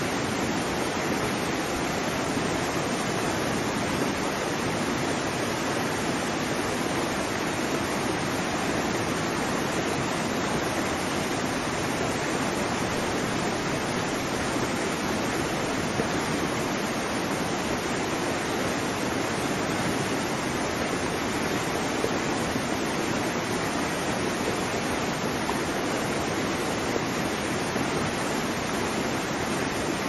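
Waterfall: the steady rush of falling water, an even hiss that never rises or falls.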